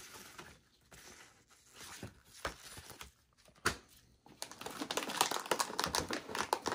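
Paper inserts and cardboard rustle with a few sharp taps, then from about halfway through a graphics card's metallic anti-static bag crinkles steadily as gloved hands handle it.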